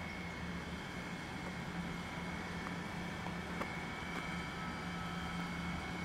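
Steady outdoor ambience: a low, even motor hum with a thin continuous high tone above it, and a faint tick or two.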